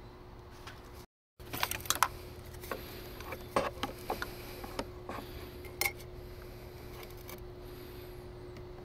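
Light clicks and taps of small hard model parts being handled and fitted together, scattered over about four seconds, with a few louder knocks. A steady faint hum runs underneath.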